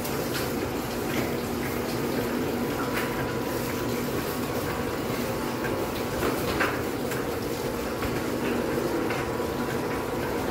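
Roller hurricane shutter lowering, its motor humming steadily as the slats run down the guide rails, with a few light clicks.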